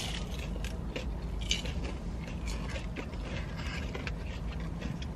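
Crunchy biting and chewing of a Hot Cheeto-coated Korean corn dog: a run of quick, irregular crisp crackles, over a steady low hum.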